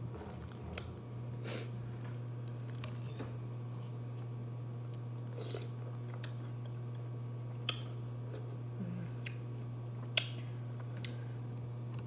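Ice scooped from an iced drink being bitten and chewed, with scattered sharp crunches and clicks, about ten spread over the stretch, over a steady low hum.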